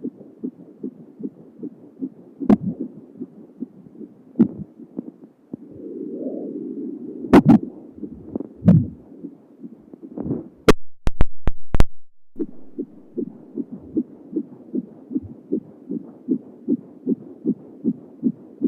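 Fetal heartbeat picked up by a handheld fetal doppler: a fast, even whooshing pulse at about two and a half beats a second. Several louder thumps break into it. Past the middle come a few sharp crackling clicks and a brief dropout before the pulse returns.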